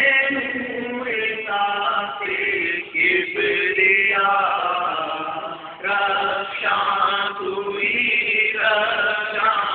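A man singing a slow vocal line in long held phrases with bending, wavering pitch, broken by short pauses for breath.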